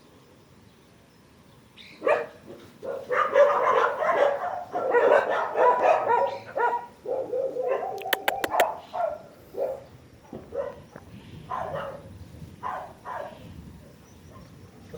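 Dogs barking: a dense run of barks starting about two seconds in, thinning out into single barks later on. A quick run of sharp clicks comes about eight seconds in.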